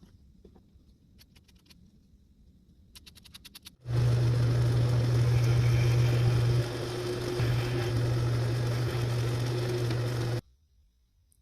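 A motor-driven machine running steadily with a strong low hum under a loud noisy rush, starting abruptly about four seconds in and cutting off sharply near the end.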